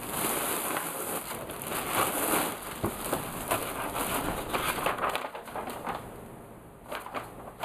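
Clear plastic wrapping crinkling and crackling as it is pulled off a large cardboard doll box, dying down about five seconds in.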